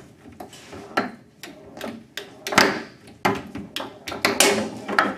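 Foosball table in fast play: the ball and the players' figures knocking and clacking in irregular sharp hits, the loudest about halfway through.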